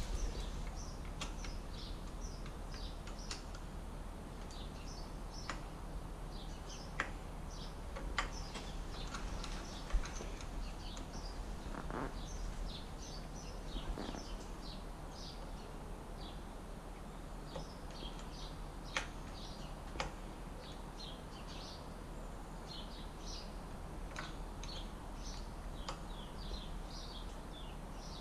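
Small birds chirping in quick high calls throughout, with a few sharp clicks and taps from work on the bicycle's rear gear mechanism, the loudest about ten seconds in.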